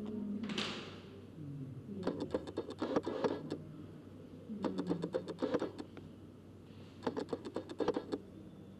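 A plastic bottle crackling and rattling as it is handled, in three bursts of rapid clicks about a second each, after a short hiss about half a second in.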